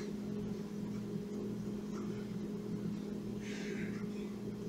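Steady low electrical hum, with a brief soft rustle of yarn being worked on a crochet hook about three and a half seconds in.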